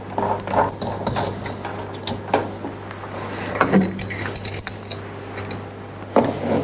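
Small metal clicks and clinks as a mounting washer and nut are fitted onto a reverse osmosis faucet's threaded stem under a stainless steel sink, with an adjustable wrench put to the nut near the end. A steady low hum runs underneath.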